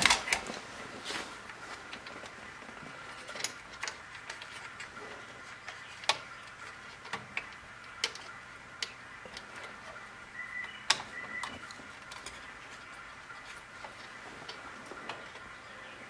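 Light, irregular clicks and taps of hands and small tools handling parts inside an open stereo receiver's chassis, roughly one every second or two, over a faint steady hum. Two short squeaks come about eleven seconds in.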